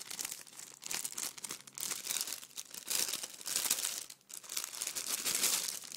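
Clear plastic bag crinkling as it is handled and opened, an irregular crackling that is loudest in the second half.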